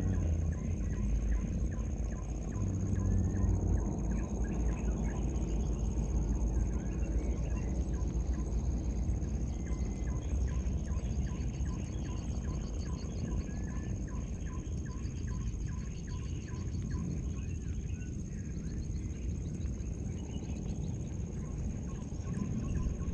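Spinning reel being cranked to retrieve a casting lure, with rows of short rapid ticks, over a low rumble and a steady high-pitched whine.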